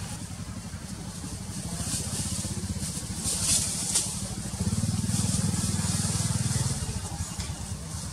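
A small engine running, a steady pulsing hum that grows louder for about two seconds past the middle, with a faint high hiss and a few short rustles above it.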